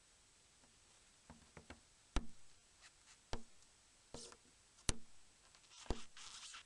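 Small, sharp clicks and taps from handling a Nokia E65 phone and hand tools during disassembly: about nine scattered clicks, two of them louder, with a short scraping near the end.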